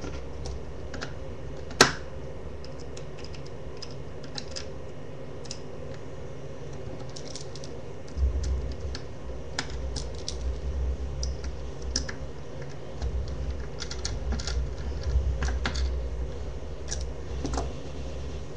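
Small scattered clicks and taps of plastic parts and a small screwdriver being handled while a battery-operated pencil sharpener is put back together. One sharper click comes about two seconds in, and a low rumbling handling noise runs from about eight seconds until near the end.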